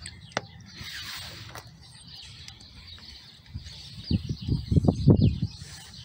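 Handling noise from a digital multimeter and its test leads being set down on a plastic air-filter housing: a couple of sharp clicks, a brief rustle, then a cluster of dull bumps and knocks about four to five and a half seconds in.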